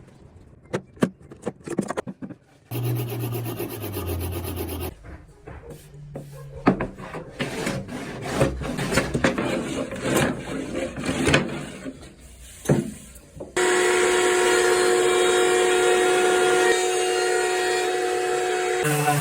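Wood being worked by hand: a run of rubbing and rasping strokes with clicks, changing abruptly several times. In the last five seconds or so a steady motor hum at one pitch takes over.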